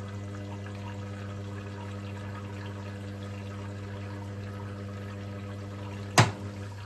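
Hotpoint Experience WMEF641 washing machine taking in water: a steady hum with water running in. Near the end there is a single sharp knock, which is the plinth panel settling back into place.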